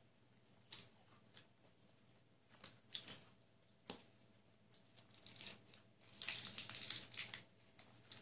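Eating sounds: crisp lettuce leaves and grilled chicken being torn, crumpled and chewed, heard as irregular crackling, crunchy bursts. There is a sharp click about four seconds in, and the crackling is densest between about six and seven and a half seconds.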